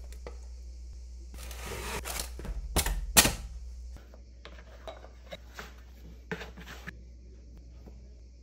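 Plastic dough scraper scraping sticky bread dough around a stainless steel bowl, with a few loud scrapes and knocks against the bowl in the first few seconds. After about four seconds come softer pats and taps of hands folding and rolling floured dough on a wooden board, over a steady low hum.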